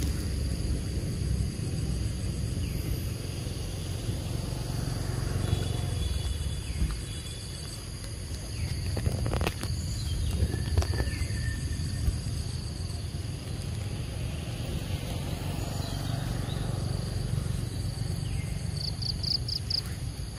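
Outdoor ambience of insects trilling steadily over a low rumble, with two sharp clicks around the middle and a short run of chirps near the end.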